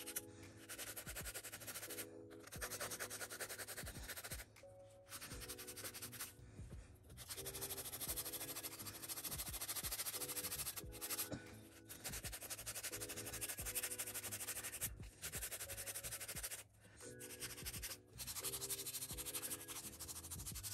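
Background music: short blocks of repeated chords that break off every second or two, with brief dropouts. A faint scratchy rubbing noise runs under it.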